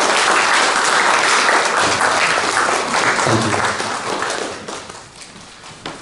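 Audience applauding after a speech ends. The clapping stays steady for about four seconds, then thins and fades away near the end.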